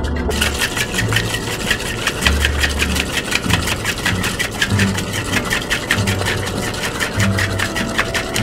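Stainless-steel cocktail shaker shaken hard, its contents rattling against the metal in a fast, steady rhythm of several strikes a second: the dry shake that whips egg white to a froth for a whisky sour.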